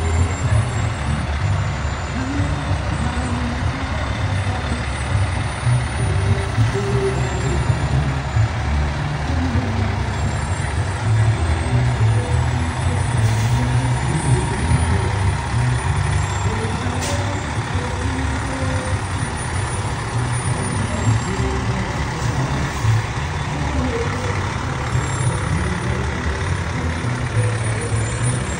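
A large vehicle's engine running steadily, a low rumble with a hiss over it.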